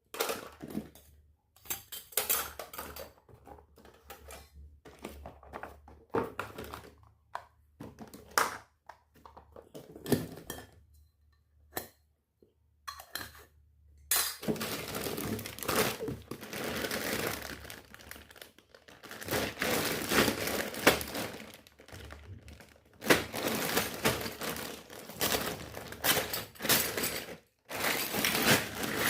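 Miniature toy kitchen pieces being handled: scattered taps, clicks and light clinks for the first half, then about halfway through a long stretch of packaging crinkling and rustling with sharp clicks, as parts are unwrapped.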